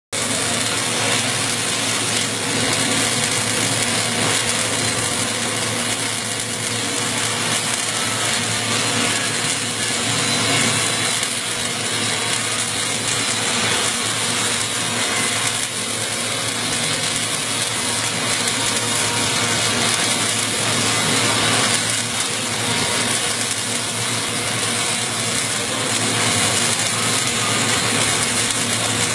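Arc welding of a pipe-to-flange joint: a steady, dense crackle from the arc, with a low hum underneath.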